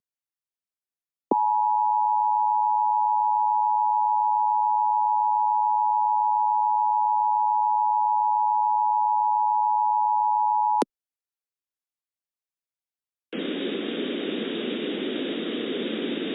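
Emergency Alert System two-tone attention signal (853 and 960 Hz together): a steady, unwavering dual tone that starts about a second in, holds for roughly nine and a half seconds and cuts off abruptly. Near the end, after a short silence, a steady hiss begins.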